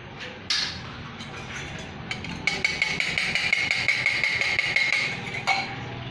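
A few sharp knocks on a bowl, then about three seconds of rapid clattering with a ringing tone, as eggs go into the chicken marinade and are mixed in.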